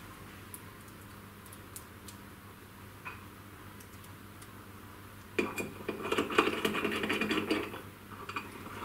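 Small metal screws and T-nuts clinking and scraping against aluminium mounting brackets as they are fitted by hand. A few faint ticks, then a couple of seconds of dense clattering and scraping from about five seconds in.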